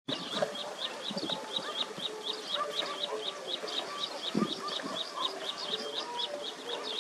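Birds chirping, one repeating a short high chirp about four times a second over scattered lower calls. A single low thump comes about four seconds in.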